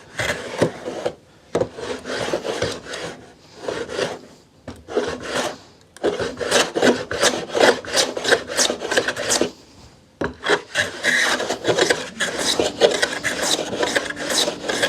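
Vintage No. 3 hand plane being pushed over a wooden board in repeated strokes, each pass a rasping shave. The strokes come in runs with short breaks, quick and close together in the second half. The plane is freshly restored but its sole is not yet flat.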